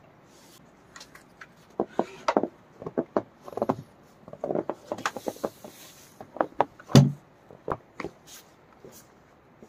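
A run of irregular knocks and clatters, wood-like, in a small enclosed space, with a brief rustle around five seconds in and one heavy thump about seven seconds in.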